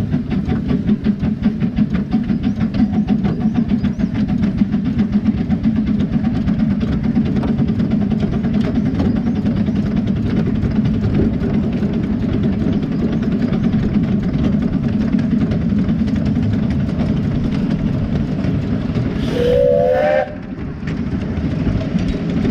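7¼-inch gauge miniature steam locomotive running along the track with a steady rumble from the footplate. About nineteen seconds in, a short whistle blast of about a second, rising slightly in pitch.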